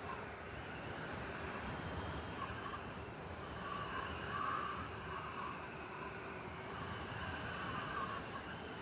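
Blizzard ambience in a city: steady wind-driven noise with a low rumble underneath, swelling and easing slightly every few seconds.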